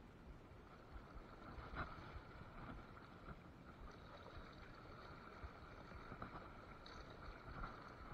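Faint, steady wash of flowing river water, with a few soft knocks.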